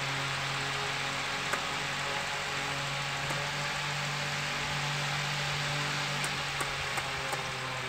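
A 55 lb thrust electric trolling motor running out of water, fed straight from solar panels with no battery, its propeller spinning in the air: a steady electric hum over a whooshing hiss, with a few light clicks.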